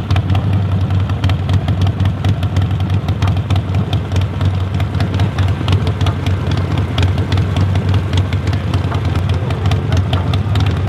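Engine idling steadily, a constant low hum with many small ticks over it.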